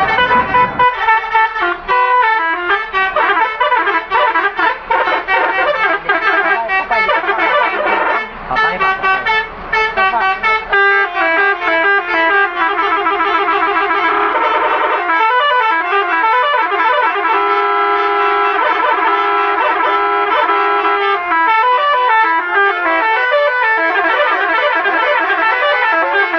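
Indonesian 'telolet' bus horn, a set of multi-tone air horns, playing a tune: quick runs of stepping notes, then a chord of several tones held for several seconds, then quick notes again.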